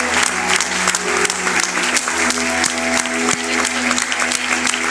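Audience applauding, many hands clapping, while the song's closing instrumental music keeps playing with steady held notes.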